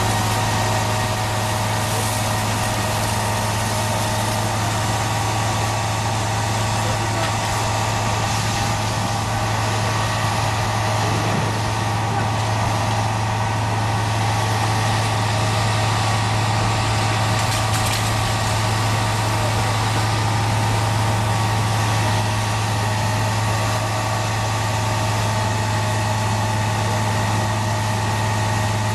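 A fire engine's motor running steadily, a low, even drone.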